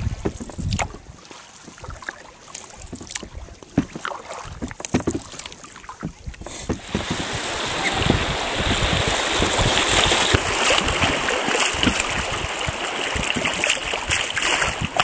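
Open canoe on a river: scattered light splashes and knocks of paddling on calm water, then about seven seconds in a loud, steady rush of water as the canoe runs through choppy rapids.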